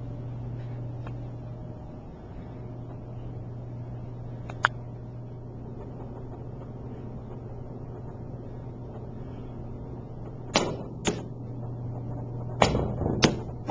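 A steady low hum with a small click about four and a half seconds in, then sharp knocks near the end: the pool cue striking the cue ball and the ball hitting the cushion where a coin sits, after two lighter knocks a second or two before.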